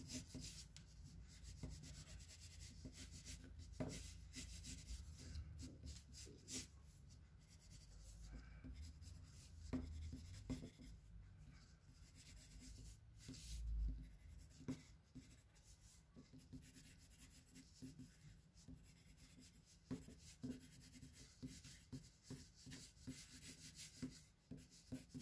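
Pencil strokes on paper on a clipboard: faint, irregular scratching and rubbing as lines are sketched. There is a soft low bump a little past halfway.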